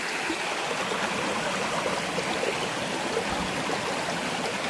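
Shallow river flowing over rocks, a steady rush of water.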